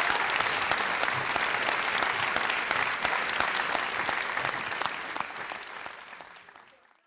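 Theatre audience applauding, a dense patter of many hand claps that fades out over the last couple of seconds.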